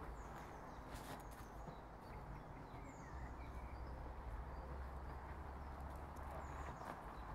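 Footsteps on a woodland dirt path, with a few faint, short, high bird chirps over a low steady rumble.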